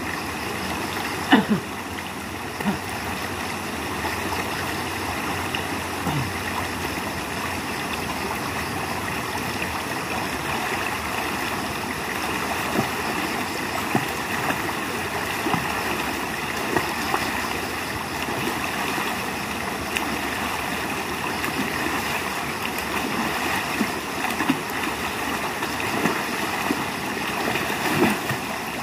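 Shallow river running steadily over stones, with a person splashing and kicking in the water now and then; the loudest splashes come about a second in and near the end.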